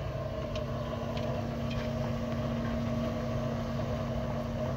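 An engine idling steadily: an even, low hum that does not change. A few faint clicks come from chopsticks stirring in an aluminium pot.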